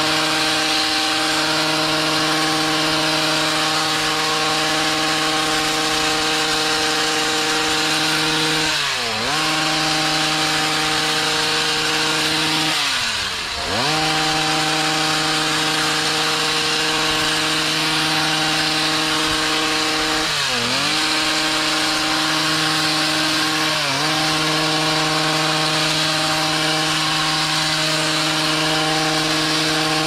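Stihl HS56C two-stroke gas hedge trimmer running at high revs while cutting shrub foliage. The engine note dips briefly and climbs back four times, most deeply about halfway through.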